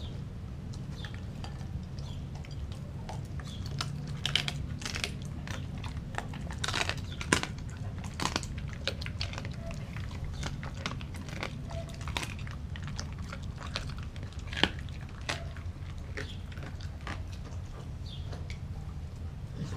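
German Shepherd mix chewing and crunching raw dog food, with irregular crunches and clicks of its teeth, and a couple of louder sharp cracks about seven and fifteen seconds in.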